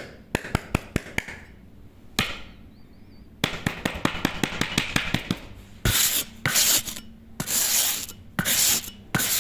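Hand work on small wooden pieces: quick light clicks and taps, then about five separate abrasive rubbing strokes on wood in the second half, each around half a second long.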